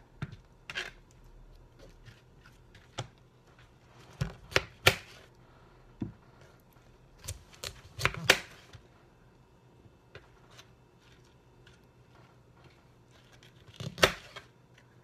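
A fresh head of broccoli being broken into florets by hand: crisp snaps and cracks of the stalks with leafy rustling. The loudest snaps come in pairs about five and eight seconds in, and once more near the end.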